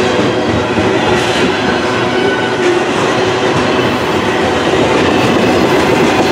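A freight train's tank cars and double-stack container cars roll past close by, their steel wheels running on the rails in a loud, steady rush of noise. A few faint, thin squealing tones are mixed in.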